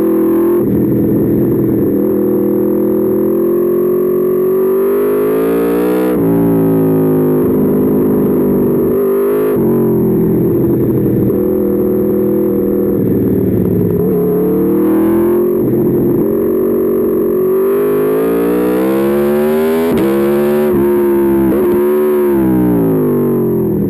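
Aprilia Tuono V4 motorcycle's V4 engine on track, its pitch repeatedly climbing under acceleration and then dropping sharply at the shifts and as the throttle is closed for corners.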